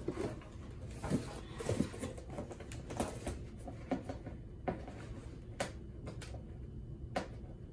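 Cardboard toy box being handled while its end is picked at to open it: scattered light clicks, taps and rustles at irregular intervals.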